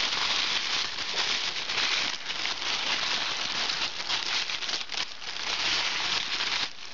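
Tissue paper crinkling and rustling continuously as it is handled and crumpled close to the microphone.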